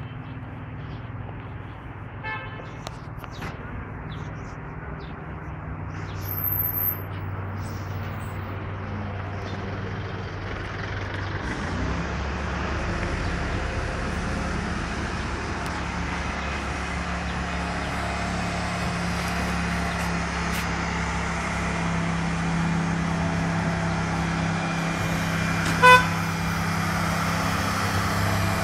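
Engine of a truck-mounted furniture lift running steadily, growing louder and heavier about twelve seconds in. A short horn-like beep sounds near the end.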